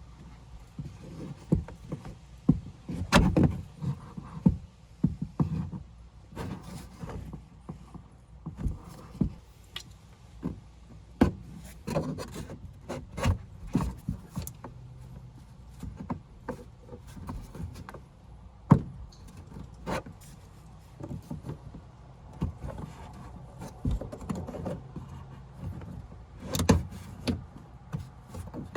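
Irregular knocks, taps and rubbing of hands working at a car's plastic C-pillar trim panel, trying to release its hidden clips.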